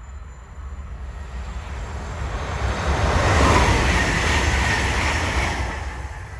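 DB Class 442 (Bombardier Talent 2) electric multiple unit passing at speed: wheels on the rails and rushing air swell to their loudest about halfway through, then fade as the train moves away.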